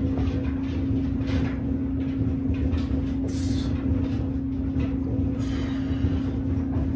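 A steady mechanical hum at one pitch over a low rumble, with a few faint knocks and a brief hiss about three and a half seconds in.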